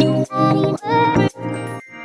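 Background music: a melody of short, separate notes.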